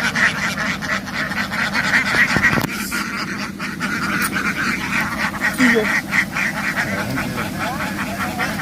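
A large flock of domestic ducks quacking loudly and continuously, many calls overlapping in a dense din.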